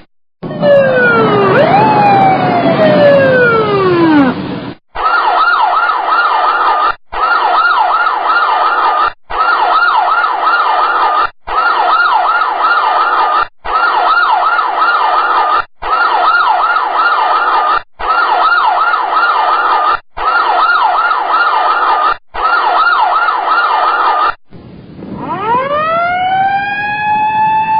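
Three different sirens in turn. The first is a siren whose pitch glides downward. The second is a fast-warbling siren repeated in about two-second stretches with brief breaks between them. The third starts about 24 seconds in, winds up in pitch and then holds a steady tone.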